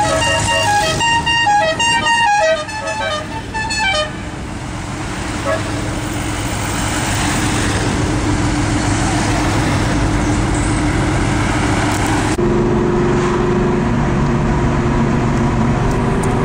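Car horns tooting in a rapid string of short blasts for about four seconds as rally cars pass, then the steady noise of cars driving by. About twelve seconds in the sound changes abruptly to a steady engine drone heard from inside a moving car.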